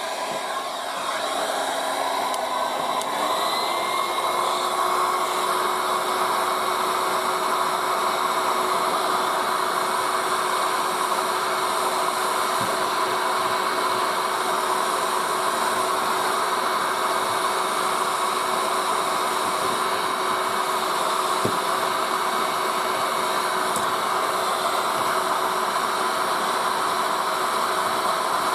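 Electric heat gun blowing steadily, its fan motor whining. The whine climbs in pitch about three seconds in and then holds. It is warming hardened old linseed putty so that it softens and its oil seeps out.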